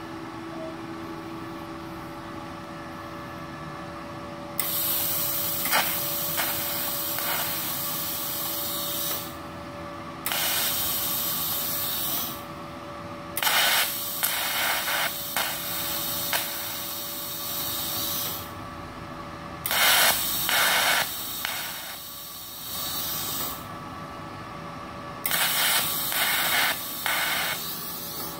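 Arc welding on stainless steel with a MultiPro TIG 200A-SA inverter welder set to about 82 amps, running off a 900-watt household supply: five bursts of hissing, crackling arc, separated by short pauses, the first about four and a half seconds in. A faint steady hum from the welder runs underneath.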